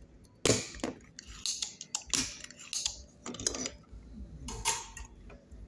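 A spring-loaded desoldering pump (solder sucker) firing with a sharp snap to pull molten solder off a joint, followed by several shorter clicking and rattling bursts over the next few seconds.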